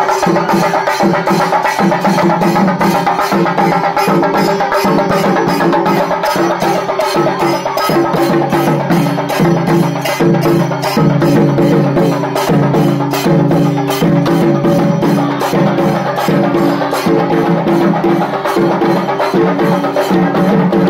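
Chenda melam: chenda drums beaten with sticks in a fast, dense, even rhythm over sustained low pitched tones.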